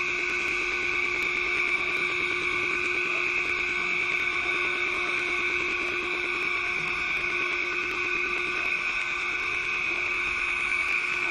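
Window-cleaning robot's vacuum suction motor running with a steady whine, the suction that holds the robot on the vertical glass while it moves across the pane.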